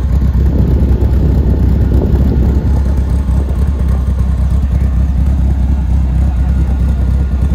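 Dodge Viper ACR's V10 engine idling with a steady, deep low "blup, blup".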